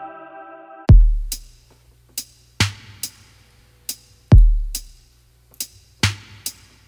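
Background music: a held chord fades out, and about a second in a drum beat starts, with a deep kick about every 1.7 seconds and lighter, sharper hits between.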